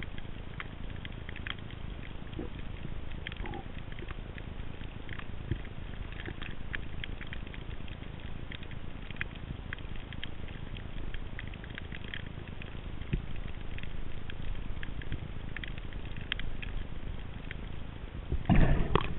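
Underwater ambience picked up by a head-mounted camera while snorkeling: a steady low rumble with many scattered faint clicks and crackles. Near the end comes a short, loud rush of noise.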